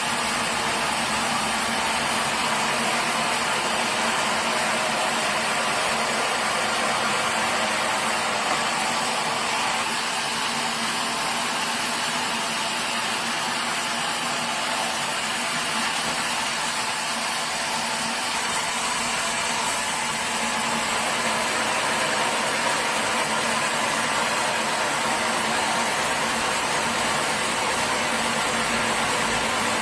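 Sawmill machinery running steadily: a constant mechanical drone with a hum, with no cut starting or stopping.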